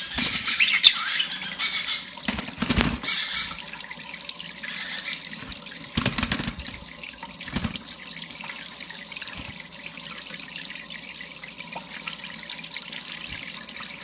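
Water running from a tap in a steady hiss while a pet bird bathes under it, with several sharp splashes, loudest in the first few seconds. A few short high squeaks come in the first second or two.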